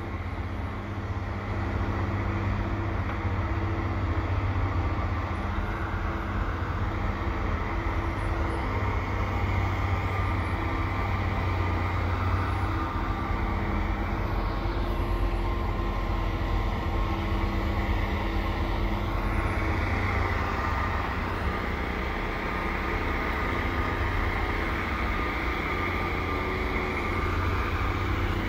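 Heavy diesel engines of a snowblower and dump trucks running steadily: a continuous deep drone with a higher whine that shifts in pitch midway.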